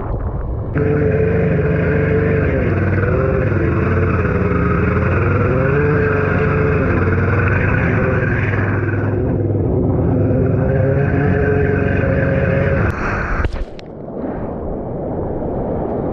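Yamaha jet ski engine coming in suddenly about a second in and running hard, its pitch rising and falling with the throttle. It stops abruptly near the end, leaving the noise of surf and splashing water.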